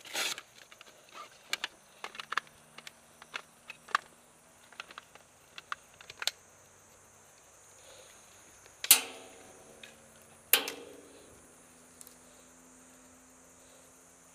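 Steady high buzzing of insects, with scattered small clicks and knocks of handling over the first few seconds. Two loud sharp cracks come about a second and a half apart in the second half, each ringing briefly.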